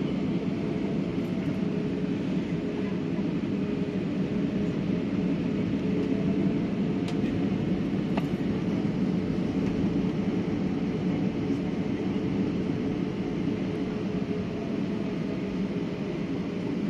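Steady cabin noise of a jet airliner taxiing on its engines, heard from inside the cabin: an even low hum with a faint steady whine running through it.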